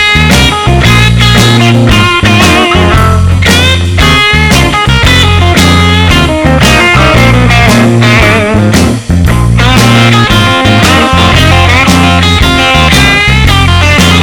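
Intro jingle: rock-style music with electric guitar over a steady bass line.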